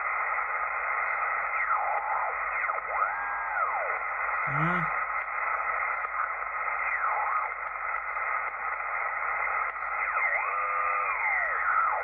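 Kenwood TS-440S shortwave transceiver receiving the 20-meter band in USB as the dial is tuned upward: a steady hiss of band noise with no stations coming through, the band dead from a geomagnetic storm. A few whistles sweep up and back down as the tuning passes carriers, most clearly about three seconds in and again near the end.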